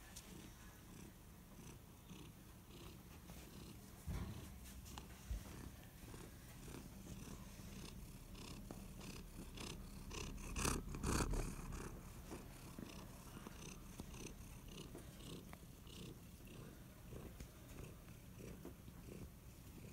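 A domestic cat purring steadily, close to the microphone, with a louder brushing rustle about halfway through as the cat rubs against the microphone.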